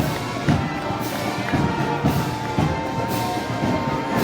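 Band playing Moros y Cristianos festival music: held notes over a steady drum beat about twice a second.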